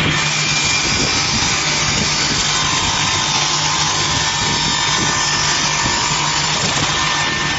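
Multi-blade rip saw machine running and ripping square wood into strips: a steady motor hum under a loud, even hiss of the blades cutting.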